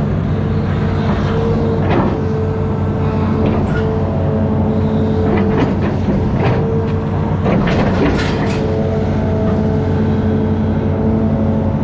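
Amphibious excavator's diesel engine running steadily under load with a steady high tone over it, and several brief sharp sounds between about two and eight and a half seconds in.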